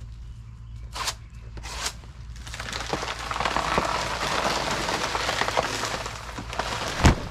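Blue plastic bag around a banana bunch rustling and crinkling as it is handled, with a couple of sharp clicks in the first two seconds and a heavy thump near the end.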